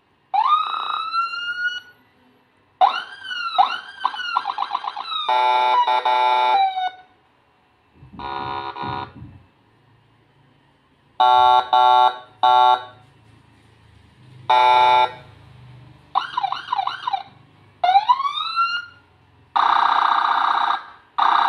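Siren speaker driven by a 200 W CJB siren module, playing Whelen HHS 2200-style siren tones fed from a phone's aux output. It runs through short samples one after another: rising wails, quick yelp sweeps, and steady horn blasts, each cut off after a second or two.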